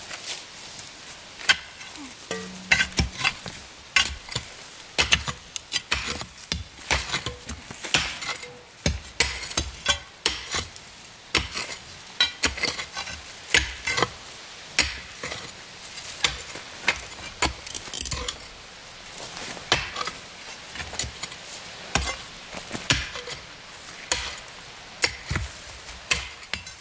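A shovel and long-handled digging tools scraping and striking stony soil and rock, in an irregular run of sharp clinks and scrapes, as a rock buried in a dirt road is dug out.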